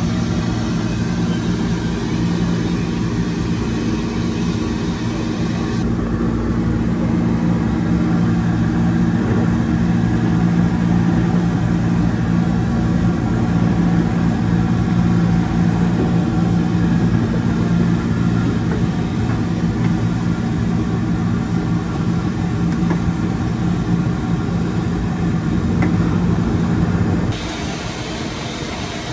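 Steady, loud mechanical hum from a street-food frying stall, heard with the bubbling of oil in a large deep-fry wok. The sound drops and changes abruptly near the end.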